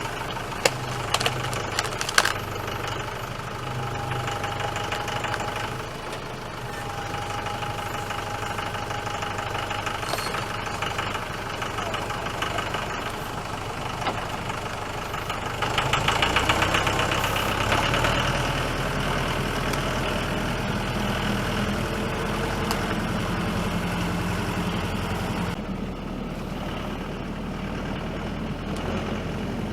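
Tractor engine idling, then running louder and heavier from about halfway through. A few sharp knocks come near the start.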